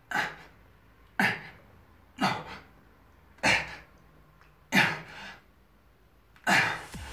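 A man's short, sharp exhalations with a push-up, one with each rep, six of them about a second or so apart.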